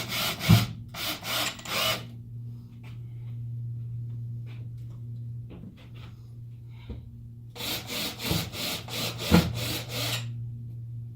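Cordless drill driving self-drilling Teks screws down through the plywood subfloor: two runs of about three seconds each, the first ending about two seconds in and the second starting near the middle, each pulsing about four times a second with a sharp knock. A steady low hum runs underneath.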